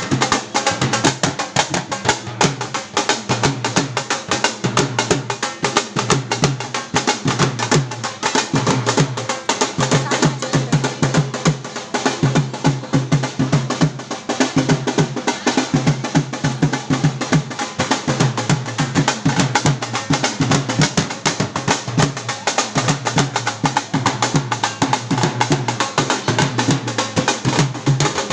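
Dhol drumming: a fast, unbroken rhythm of dense drum strokes that keeps on without a pause.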